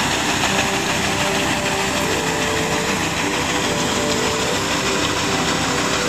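New Holland 8080 combine harvester's engine and machinery running steadily while it unloads grain through its auger, a constant machine drone with an even hiss over it.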